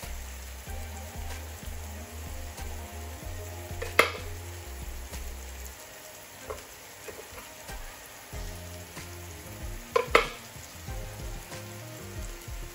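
Onions frying in oil in a pan, a steady sizzle. A few sharp knocks of a knife on a wooden chopping board cut through it, the loudest about four seconds in and two close together around ten seconds.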